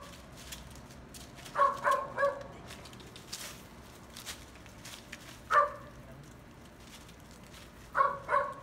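Dog giving short, high-pitched barks: three in quick succession about a second and a half in, one near the middle, and two more near the end.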